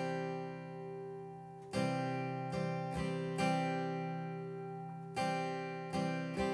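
Martin steel-string acoustic guitar strummed on a C chord voiced with a G on top, in an up, up, down, up pattern. There are two groups of four quick strums, the first about two seconds in and the next about five seconds in, and each group is left to ring.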